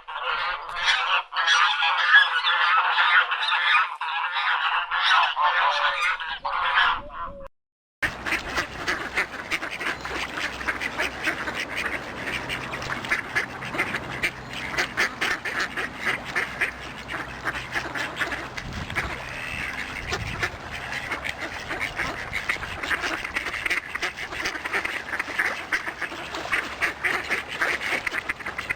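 A flock of ducks quacking and calling continuously, in two recordings with a brief silent break about seven and a half seconds in.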